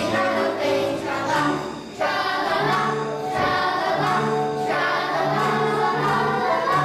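Music with a choir singing over a steady bass line, with a short break about two seconds in.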